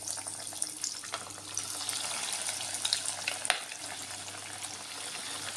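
Breadcrumb-coated corn cutlets frying in hot oil: a steady sizzle with scattered sharp crackles.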